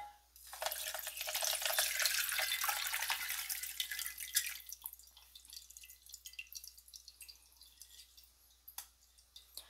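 Coffee concentrate poured from a glass jar through a fine mesh coffee filter into a glass measuring cup: a steady pouring stream for about four seconds, then thinning to trickles and drips.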